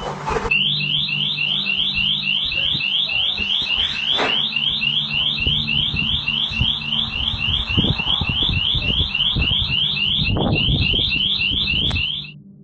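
Electronic alarm siren sounding a fast run of rising chirps, about three and a half a second, that cuts off suddenly near the end, with a few thuds beneath it.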